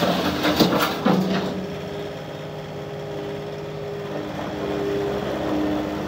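Kubota SSV65 skid steer's diesel engine running as the machine moves and turns, with a burst of sharp knocks and clatter in the first second and a half, then a steady engine hum that shifts slightly in pitch about halfway through.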